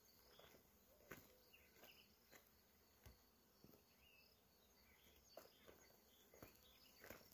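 Near silence: faint outdoor ambience with scattered soft clicks and a few faint high chirps.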